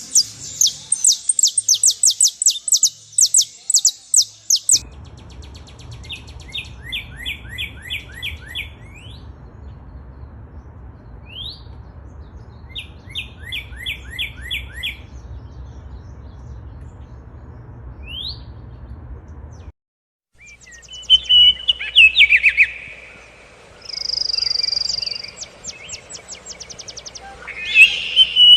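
Birds chirping in fast repeated series of high notes, with a few single rising whistles between them. The sound drops out briefly about two-thirds of the way through, then the chirping and trilling resume.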